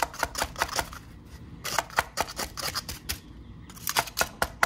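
Crinkling aluminium foil and a rustling dust bag as sawdust is poured from an orbital sander's dust bag into a crumpled foil bowl: quick irregular crackles, densest about two seconds in and again near the end.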